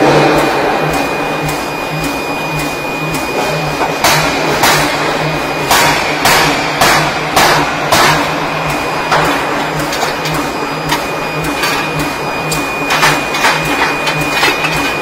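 Power forging hammer striking red-hot metal in a quick run of about eight heavy blows a few seconds in, then a few lighter knocks near the end, over the machine's steady pulsing hum.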